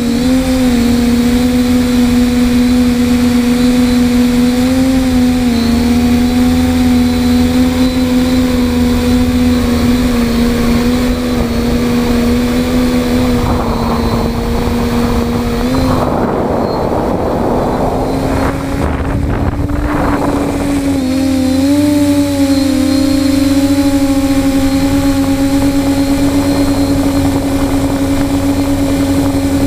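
TBS Discovery quadcopter's brushless motors and propellers humming steadily, heard up close from the on-board GoPro, the pitch shifting slightly as the throttle changes. About halfway through, a rough rushing noise rises over the hum for several seconds, then the steady hum returns a little higher.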